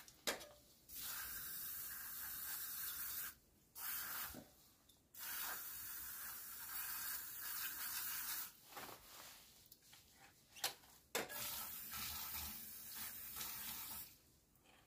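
Aerosol throttle-body cleaner sprayed in several long bursts of steady hiss, with short pauses between, to clean the throttle body.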